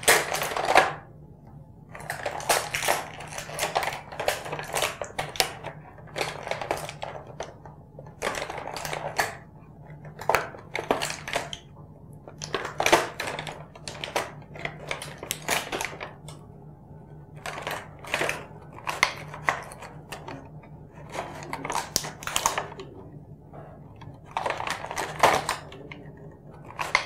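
Plastic packaging bags crinkling as small plastic toy figures and vehicle parts are pulled out of them, in irregular bursts with short pauses between.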